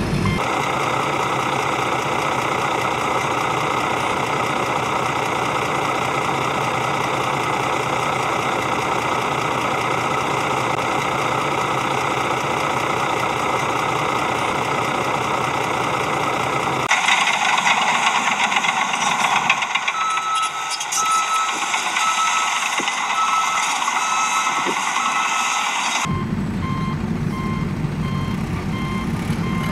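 Truck engine running steadily with a reversing alarm, laid over the toy vehicles as sound effects. The sound changes about two-thirds of the way in to a rattlier engine with a higher series of evenly spaced beeps, then changes again near the end to a steady engine with lower evenly spaced beeps.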